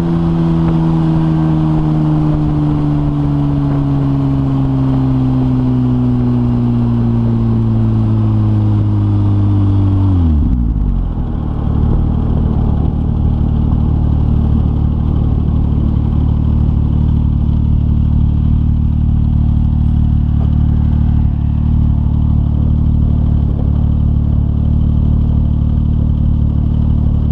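2004 Porsche 996 Turbo's twin-turbo flat-six through a decatted Kline 70 mm stainless X exhaust, its engine speed falling slowly for about ten seconds. It then drops sharply and settles to a steady idle.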